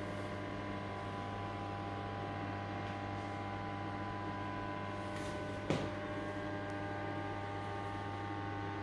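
Steady electrical hum made of several constant tones, with a single short knock a little over halfway through.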